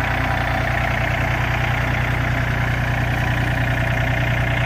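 John Deere 3025E compact tractor's three-cylinder diesel engine idling steadily.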